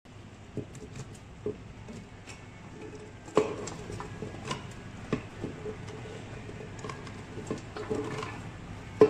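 Whole shallots and garlic cloves tipped from a plastic plate into a blender jar, dropping in with a scatter of knocks and light clattering taps. The loudest knock comes about three and a half seconds in, with more taps near the end.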